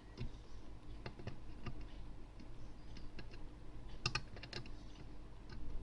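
Faint, irregular light clicks and taps of a soldering iron and tools against a circuit board while an IC's pins are soldered. A small cluster of sharper clicks comes about four seconds in.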